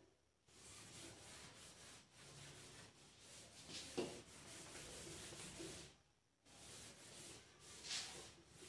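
A whiteboard being wiped clean of marker writing: faint, repeated rubbing strokes across the board's surface, with a short pause about six seconds in.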